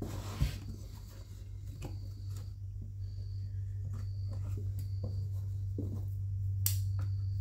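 Light handling noises from a partly dismantled chainsaw being shifted and worked in the hands: scattered small clicks and knocks, a dull knock about half a second in and a sharp click near the end. A steady low hum runs underneath, growing louder.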